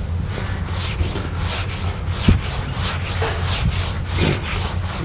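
Blackboard being wiped with an eraser: rhythmic back-and-forth rubbing strokes, about three or four a second, with a single knock about two seconds in.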